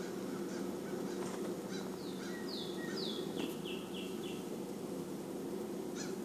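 A steady low hum. About two seconds in comes a short run of about seven high chirps, stepping down in pitch and ending a couple of seconds later.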